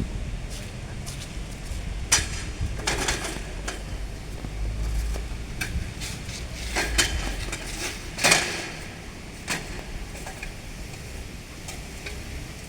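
Scattered short metallic clinks and knocks, as of fence wire and tools being handled, the loudest about eight seconds in. A low rumble runs underneath.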